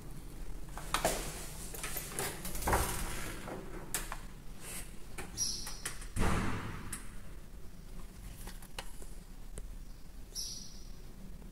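Old wooden wardrobe door being opened and handled: scattered knocks and rubbing, a heavier thump about six seconds in, and a few brief high squeaks.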